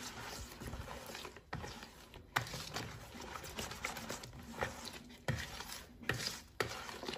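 Runny batter being mixed by hand in a plastic basin: irregular wet swishes and squelches, with a few sharper knocks against the basin.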